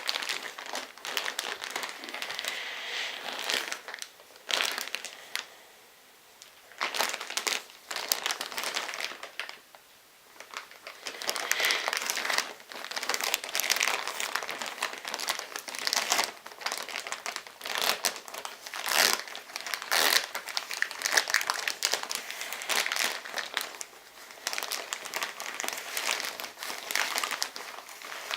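Crinkling plastic as a pack of Pampers changing mats is unwrapped and handled, coming in stretches with short pauses about five and nine seconds in.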